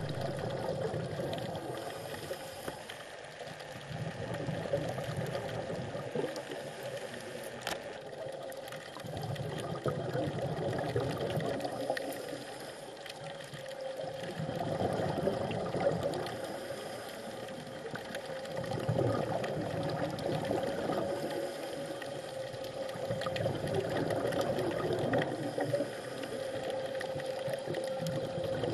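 Underwater sound on a scuba dive: the muffled rush of the diver's regulator breathing and exhaust bubbles, swelling and fading about every five seconds, over a steady faint hum.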